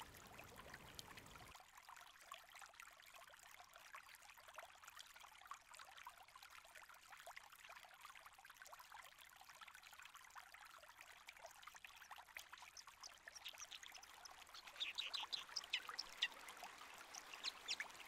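Faint running river water, and in the second half a white-throated dipper singing: runs of quick, high notes, loudest near the end.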